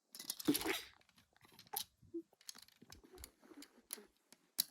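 Plastic Lego pieces being handled, with a short clatter about half a second in, then scattered light clicks and taps.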